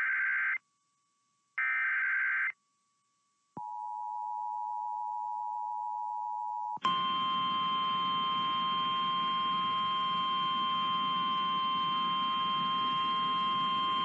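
Emergency Alert System tones announcing a flash flood warning: two short screechy bursts of digital header data, then the two-note attention signal held for about three seconds, then a louder steady alert tone of several pitches over a hiss.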